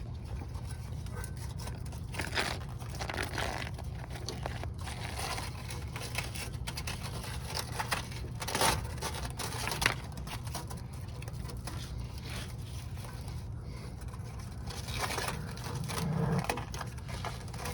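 Scraping, rustling handling sounds as an exhaust repair bandage is wrapped around an exhaust pipe, with a steady low hum underneath.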